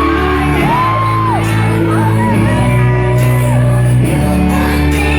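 Live band music at full volume in a concert hall: held bass notes under a gliding high melody, with the crowd shouting and whooping along.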